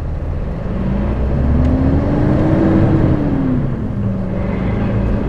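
HGV lorry's diesel engine pulling away from a standstill, heard from inside the cab: a low rumble with an engine note that rises, drops back about three seconds in, then begins to climb again near the end.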